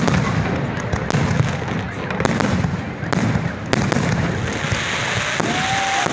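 Fireworks display: aerial shells bursting with a continuous crackle and a sharp bang every second or so, and a short whistle near the end.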